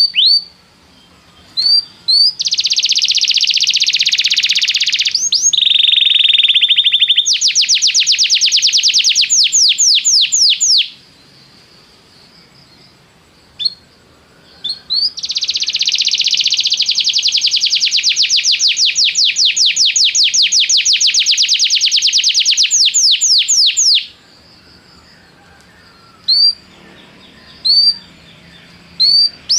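Domestic canary singing: long, fast trills and rolls of rapidly repeated notes, the longest lasting about nine seconds, broken by short pauses with single chirps.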